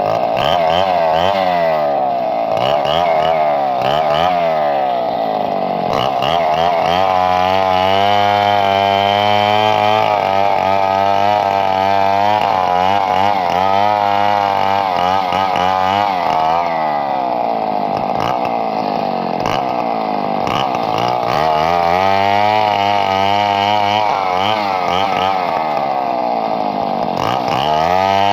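Chainsaw engine running loudly without a break, its pitch rising and falling again and again as the throttle and load change.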